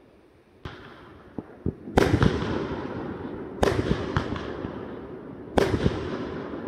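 Aerial fireworks going off: a sharp pop under a second in, then loud bangs about two, three and a half and five and a half seconds in, with a smaller one between. Each bang trails off in a long crackling echo.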